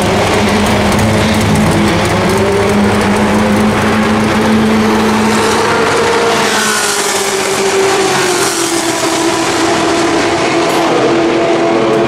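Racing car engines running, with steady engine notes at first and one engine's pitch falling away about six to seven seconds in.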